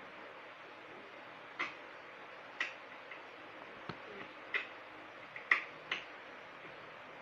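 Plastic DVD cases being handled, making about seven sharp, separate clicks and taps over a steady hiss.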